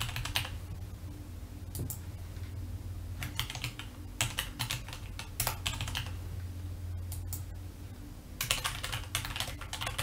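Typing on a computer keyboard: short runs of keystrokes with pauses between them, the longest run near the end.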